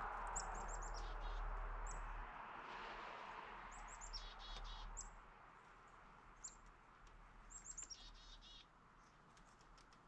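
Small songbirds at a backyard feeder calling: repeated short, high chirps, some runs ending in a few lower, harsher notes. A steady rushing background noise is loudest for the first two seconds, then fades.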